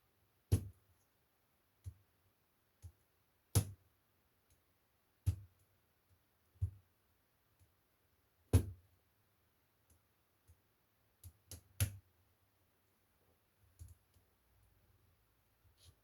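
Irregular sharp clicks and light knocks, about a dozen with pauses between them. They are loudest about half a second in and about 8.5 s in, with a quick run of three near 12 s. This is small plastic and metal laptop parts and tools being handled during disassembly of an Acer E1-432.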